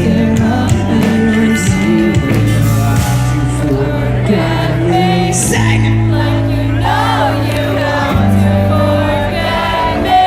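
Pop-punk band playing live through a loud PA, with a male lead singer singing over sustained bass and guitars.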